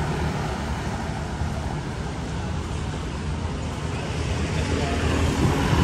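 Street traffic with motor scooters passing along the road, their engines a steady rumble. One scooter swells louder near the end as it passes close.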